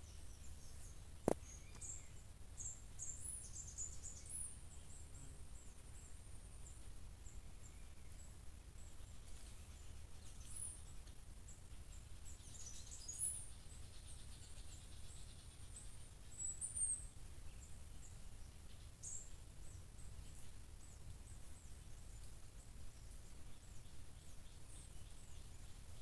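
Faint outdoor ambience: scattered short high-pitched chirps over a steady low rumble, with a single sharp click about a second in.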